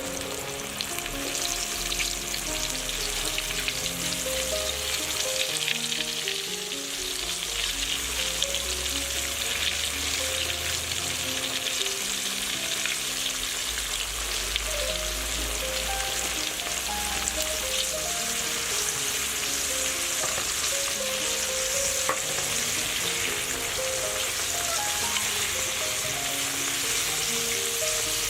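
Fish frying in hot oil in a pan: a steady, dense sizzle with fine crackling throughout.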